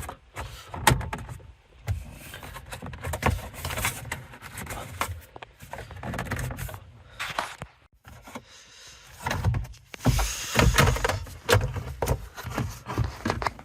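Hard plastic dashboard trim and screen housing being handled and pulled free: irregular clicks, knocks and scraping rustles.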